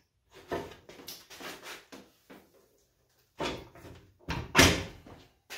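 A mid-1990s table saw and its steel leg stand being tipped over and turned upside down onto the floor: a series of metal knocks and clunks, the loudest about four and a half seconds in.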